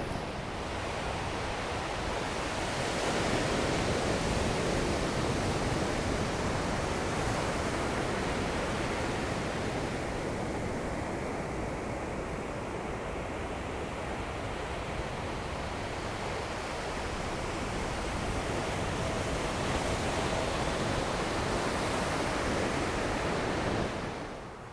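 Ocean surf washing onto a beach, a steady hiss of breaking waves that swells and eases.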